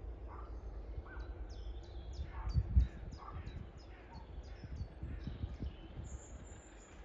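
Woodland birdsong: a small bird repeats short, high chirping notes over and over, and a crow caws a few times. A low rumble runs underneath.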